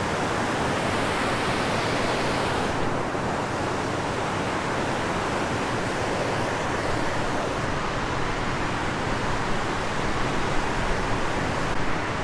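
Water pouring over a dam spillway and churning below it: a steady rushing noise with no break.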